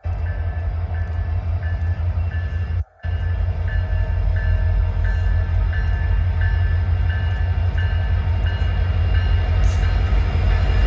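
Ontario Northland locomotive 2123 and its train passing close by with a heavy low rumble. A bell rings about twice a second over it. The sound cuts out for a moment about three seconds in.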